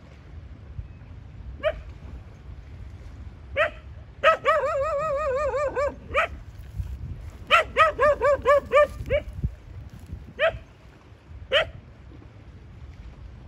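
A dog barking: single barks spaced a second or two apart, a wavering drawn-out bark lasting about a second and a half a few seconds in, and a quick run of about six barks in the middle.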